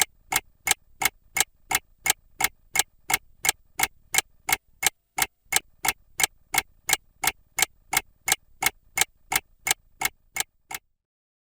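Mechanical clock ticking at a steady, even pace of about three ticks a second, stopping abruptly near the end.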